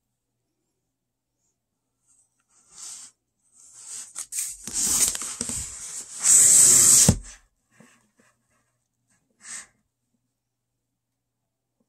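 A cardboard box being handled and turned over in the hands, making a scraping, rustling noise. It starts about two and a half seconds in, grows loudest around six to seven seconds, stops suddenly, and there is one short rustle later.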